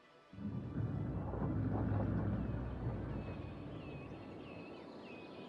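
Outdoor ambience: a low rumble starts abruptly about a third of a second in, swells for a couple of seconds and then slowly fades, while small birds chirp repeatedly above it.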